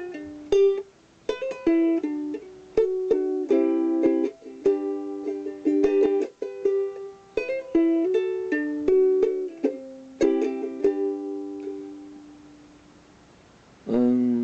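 Ukulele picked in a quick run of single notes, the last of them left ringing and slowly fading about 11 seconds in, with one more note or strum struck just before the end.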